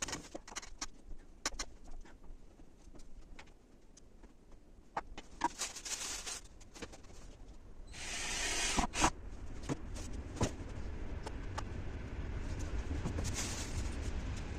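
Scattered light clicks and knocks with two short bursts of rustling or scraping, typical of hands working with tools and electrical fittings. A low rumble builds in the second half.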